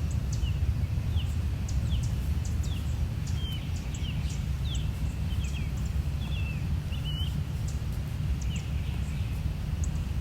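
A bird calling outdoors in a series of short chirps, roughly two a second, with a few faint ticks, over a steady low rumble.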